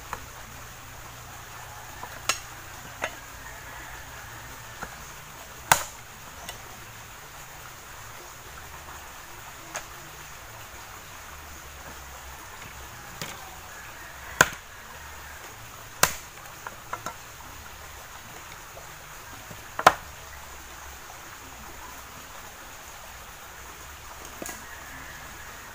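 Machete chopping thin dry branches into firewood: a dozen or so sharp, separate chops at irregular intervals, the hardest a little past the middle and about 20 seconds in.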